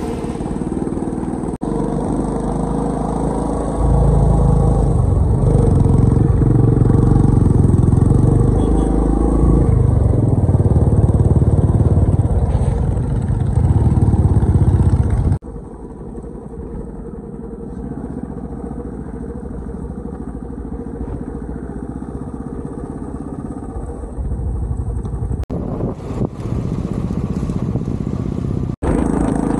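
Royal Enfield motorcycle running on the move. It is louder for about ten seconds from a few seconds in, then drops abruptly to a lower, steady run, with a couple of brief breaks near the end.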